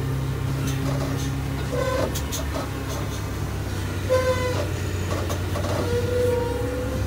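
Forklift engine running steadily, with a few short pitched toots about two, four and six seconds in.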